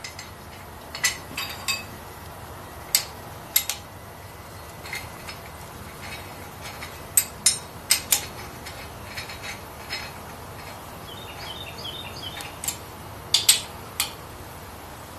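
Scattered sharp metal clicks and clinks, singly and in small clusters, of a wrench and bolts on a bare Ford 460 big-block's cast-iron deck as a homemade angle-iron piston stop is bolted on.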